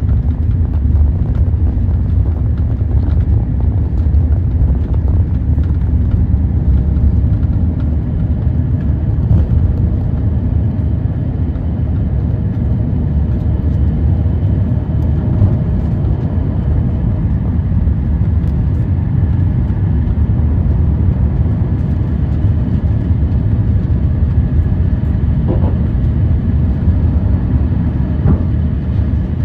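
Cabin noise of an Airbus A350-900 on its takeoff run and initial climb, heard from inside the cabin. Its Rolls-Royce Trent XWB engines are at takeoff thrust, making a steady, loud, deep rumble with faint steady tones above it.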